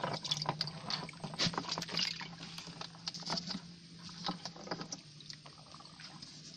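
Water splashing and sloshing in short irregular bursts mixed with small knocks, busiest in the first few seconds and then thinning out, over a faint low steady hum.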